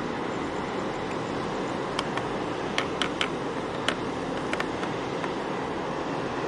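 Steady rushing noise of wind and harbour water, with a run of about half a dozen sharp clicks in the middle.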